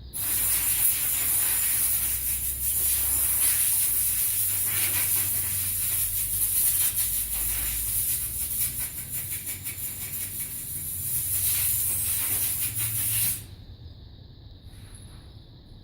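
Compressed air hissing as a blow gun blows dirt out of a car's engine air filter, in one long blast that swells and eases and cuts off suddenly about 13 seconds in.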